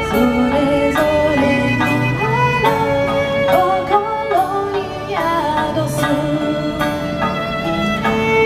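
Instrumental break in a folk-style song: a violin plays a sliding melody over steady strummed chords on a plucked string instrument.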